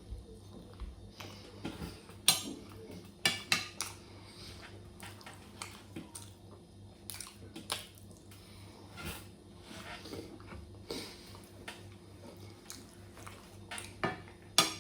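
Cutlery clinking against a dish while eating: scattered sharp clicks at irregular intervals, the loudest near the end.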